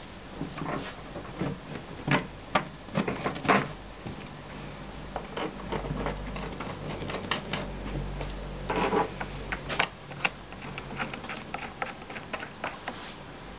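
Irregular small clicks and knocks of furniture hardware being handled: a metal bolt pushed into a bed panel and the panel shifted into place during assembly.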